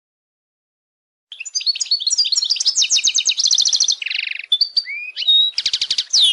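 European goldfinch singing: a fast, twittering song of trills, a buzzy note and whistled glides, starting about a second in.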